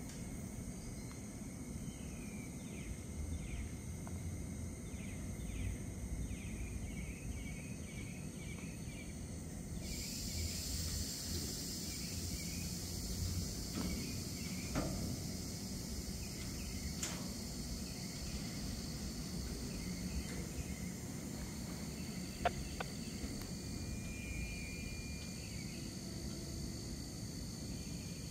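Insects chirping over a low steady rumble beside a standing freight train. A steady high hiss comes in suddenly about a third of the way through, with a few faint clicks and one sharp click late on.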